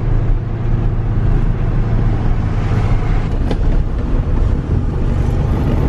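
Volkswagen Beetle driving along at steady speed: a constant low engine drone mixed with road and wind noise through an open window.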